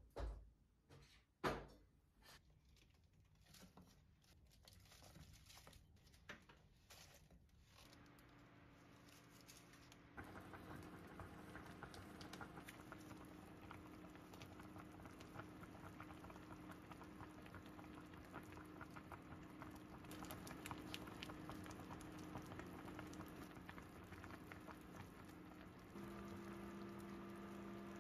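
Two knocks in the first two seconds. Then, from about ten seconds in, a hot pot simmering on an electric hob: faint, steady fine bubbling and crackling over a low hum.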